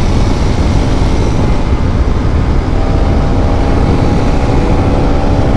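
A motorcycle on the move: its engine runs under heavy wind rush on the microphone, and a steady engine hum comes through more clearly about three seconds in.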